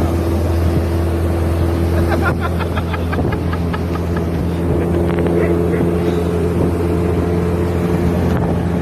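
Small boat's motor running steadily at a constant speed.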